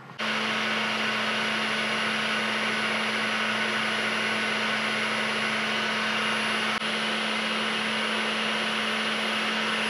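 Vertical milling machine spindle running at a constant speed with a small center drill spotting hole positions in a metal bar: a steady motor hum with a faint high whine and hiss, starting suddenly right at the start.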